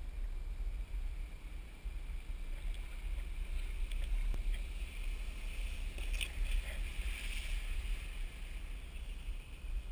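Steady low rumble under the hiss of water spray from a winch-towed wakeboard, which swells about five to eight seconds in as the rider carves past.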